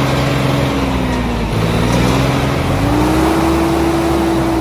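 Vehicle engine sound running steadily, its pitch slowly sagging and swelling, rising about halfway through and dipping again near the end. It carries on unchanged after the hand-pushed toy vehicles leave the picture, so it is an engine sound laid over the video rather than anything the toys make.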